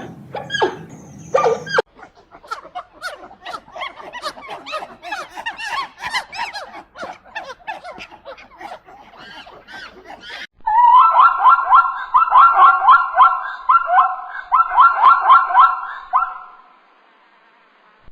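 A run of animal calls: a few loud pitched calls, then several seconds of rapid chirping and chattering, then a loud, fast trilling call repeated for about six seconds that stops shortly before the end.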